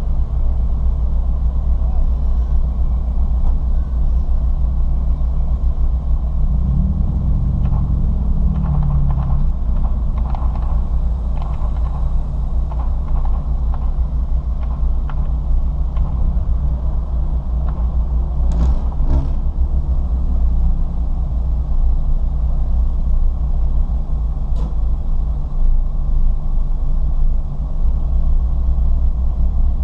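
Ford Fiesta ST driven hard on a race track: a steady, loud engine and road drone. The engine pitch swings up and back down about seven seconds in, and changes again briefly near nineteen seconds, as the revs change through the corners.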